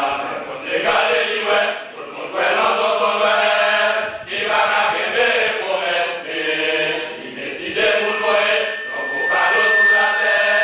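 A men's choir singing together, in sung phrases with brief pauses between them.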